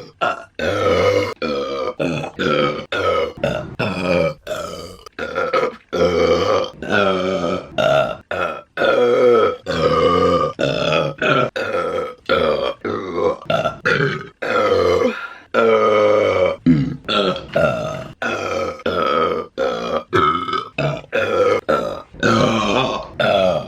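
A woman's loud burps, one after another, edited back to back with abrupt cuts between them, roughly one or two a second; each is a pitched, throaty belch.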